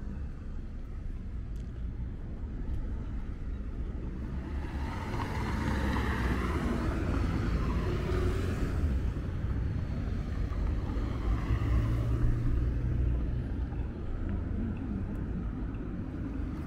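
City street traffic: a steady low rumble, with a car passing close by about five to nine seconds in and another vehicle's low hum swelling a few seconds later.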